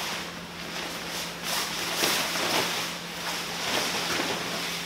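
Tent canopy fabric rustling and swishing as it is shaken out and spread over the frame, in several rushes, the strongest about two seconds in.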